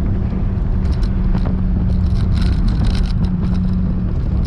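Dodge Viper SRT's V10 engine running at a steady pitch under road and tyre noise, heard from inside the cabin, with a few brief scratchy noises about two to three seconds in.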